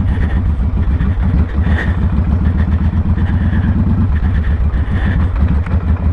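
Victory Hammer motorcycle's V-twin engine running steadily under way just after pulling off, with a continuous low exhaust beat.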